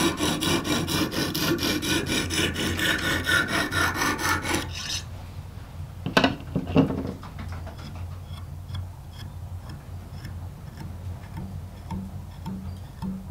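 Extra-coarse hone of a Lansky guided knife-sharpening system rasping rapidly back and forth along a filleting knife's edge, about four to five strokes a second, grinding to raise a burr. The strokes stop about five seconds in, followed by a few sharp knocks as the hone is lifted off and set down.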